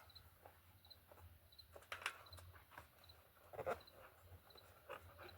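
Faint handling noise of a bicycle tire and inner tube being worked by hand onto the rim: soft rubbery scrapes and rustles, clearest about two seconds in and again a little past three and a half seconds. A faint high chirp repeats about every half second throughout.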